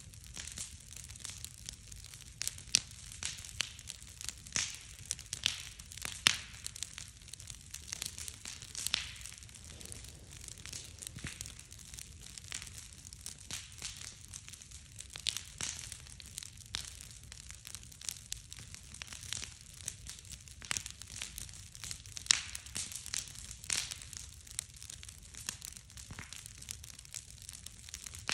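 Large wood bonfire crackling, with irregular sharp pops scattered throughout over a low steady rumble.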